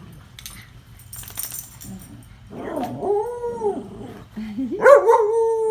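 A dog vocalizing in two long drawn-out calls: the first arches up and down in pitch, and the second starts low, rises and is held. A short rustle comes before them.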